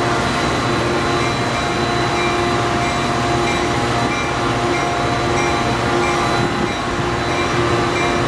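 Metrolink diesel passenger locomotive running steadily, a continuous engine sound with a steady whine and a faint tone that pulses on and off over and over.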